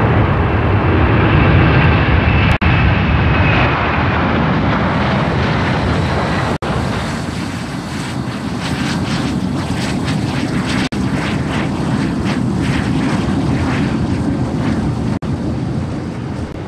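Jet airliner engines at takeoff power: a loud, deep rumble with a high whine. After about six seconds it gives way to a lower, fluttering jet noise as an airliner rolls along the ground. The sound is broken by a few very brief gaps.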